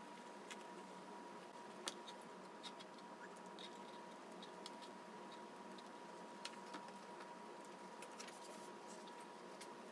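Hand sewing with a needle and thread through cotton fabric: faint scattered scratches and ticks, over a faint steady hiss and a thin steady high tone.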